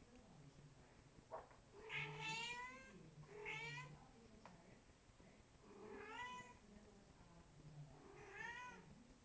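Five-week-old kitten meowing: four high-pitched meows, each under a second long, a couple of seconds apart.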